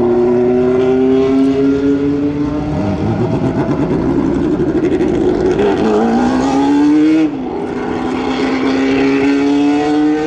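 Historic Formula 1 car's engine running at raised revs as it is pushed and then pulls away: its pitch climbs slowly, rises faster and drops sharply at a gear change about seven seconds in, then climbs again.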